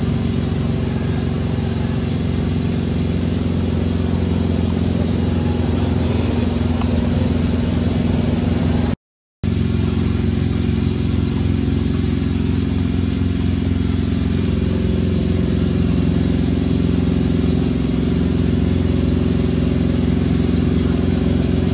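An engine running steadily, a constant low drone that does not rise or fall. It cuts out completely for about half a second around nine seconds in.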